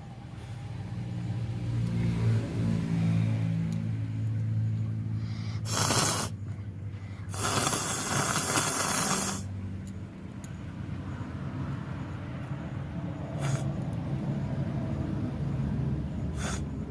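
A woman with a head cold sneezing and blowing her nose into a cloth. One long blow of about two seconds comes near the middle, with a few short, sharp bursts around it.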